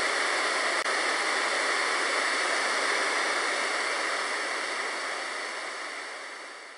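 A steady, even hiss, like rushing water or static, that fades out over the last two seconds.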